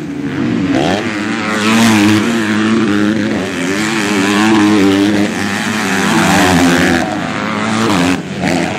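MX2-class motocross motorcycles racing, their engines revving up and down in pitch as the riders accelerate and back off, with sudden jumps in the sound a couple of times.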